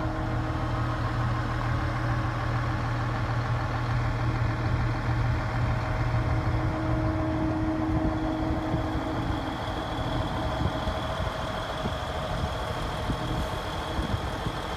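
Diesel engine of a Case IH FLX4510 fertilizer floater idling steadily, with a high steady whine joining in about four seconds in.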